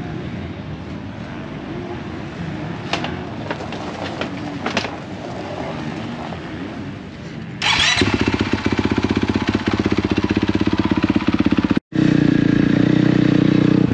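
Motocross bike engine coming in suddenly about halfway through, after quieter background noise with a few clicks, then running close with a rapid, even firing beat. It drops out for a moment and comes back louder near the end.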